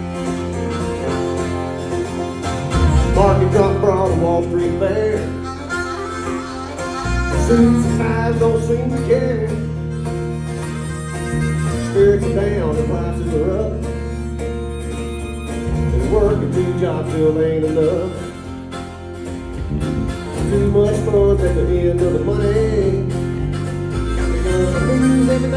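Live country-style band playing an instrumental break: a harmonica plays the lead melody over strummed acoustic guitars and a steady electric bass line.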